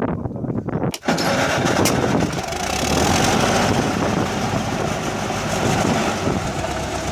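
An engine running steadily and loudly, cutting in abruptly about a second in.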